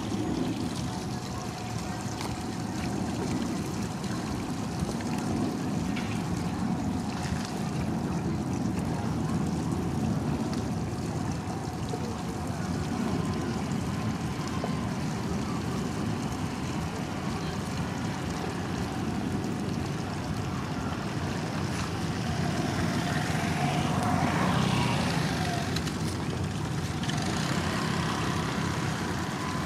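Steady low drone of boat engines running, with a faint wash of water; a higher whine swells and fades briefly near the end.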